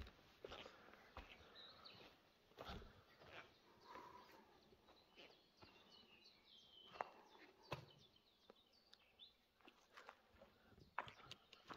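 Near silence: a few faint footsteps on a dirt floor and faint birdsong chirping in the background, mostly in the middle.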